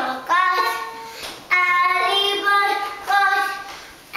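A young girl singing: three held phrases, each starting loud and fading away.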